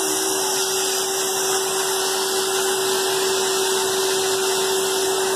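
Numatic Henry Hoover vacuum cleaner running steadily: a constant motor whine on one pitch over a rushing hiss of air.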